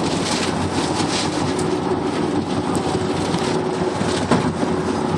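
Swarming bugs hitting a moving vehicle's windshield in a dense run of small ticks that sounds like rain, over steady road noise inside the cabin, with a louder hit about four seconds in.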